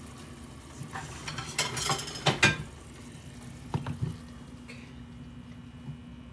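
Metal utensil clinking and scraping against a cooking pot in a few separate clatters, the loudest cluster about two seconds in and another about four seconds in, over a steady low hum.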